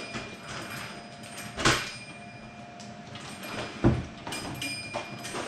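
Toy train track pieces and trains being handled: two sharp knocks about two seconds apart, the second the louder, with lighter clicks and clatter between them.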